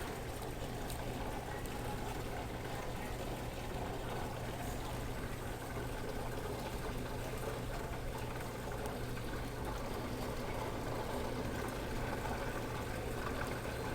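Electrolux 10 kg washing machine filling with water to its maximum level: water running steadily into the drum, with a constant low hum.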